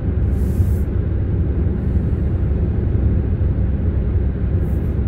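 Steady low rumble of road and tyre noise inside the cabin of a 2020 Skoda Superb cruising on Michelin CrossClimate tyres, with no distinct hum or roar from the tyres.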